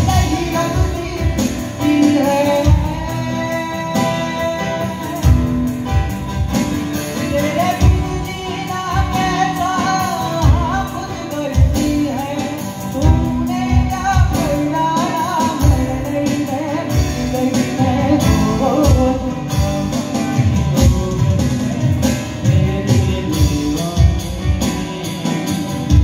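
Live acoustic band playing a Hindi song: a man singing over strummed acoustic guitars and keyboard, with a regular beat.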